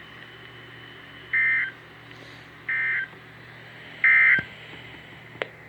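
Emergency Alert System SAME digital data tones: three short, identical warbling bursts about 1.3 s apart, the three-times-repeated End of Message code that closes a broadcast weather warning. A sharp click comes near the end, over a steady low radio hum.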